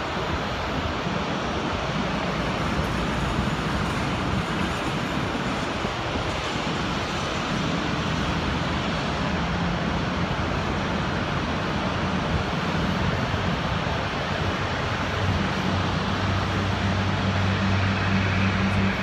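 Airport apron noise: a steady rumble of aircraft engines and ground equipment, with a low droning hum that grows stronger over the last few seconds.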